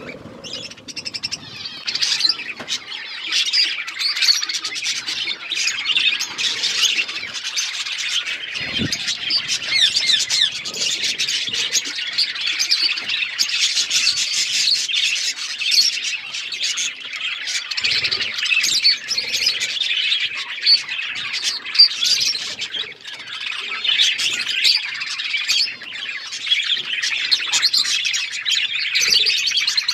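A flock of budgerigars chirping and chattering without a break, many calls overlapping.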